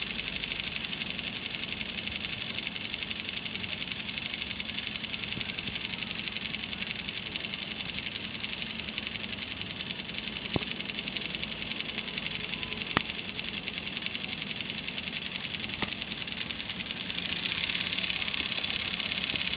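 Small solar-powered motor and plastic gearbox of a walking toy dog whirring steadily with a fine buzzing rattle. A few sharp clicks come partway through, and the whir gets louder near the end.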